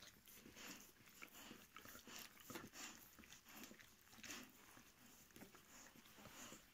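13-day-old puppies suckling at their mother: faint, irregular wet sucking and smacking sounds, several a second.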